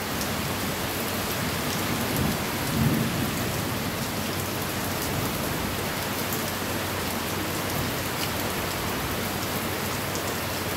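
Heavy rain falling steadily on a concrete patio, leaves and water surfaces, an even hiss throughout. A brief low rumble swells about two to three seconds in.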